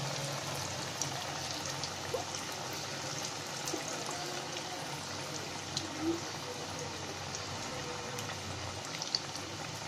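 Marinated taro root (arbi) pieces deep-frying in hot oil in a steel kadhai: a steady sizzle with scattered small crackles and pops.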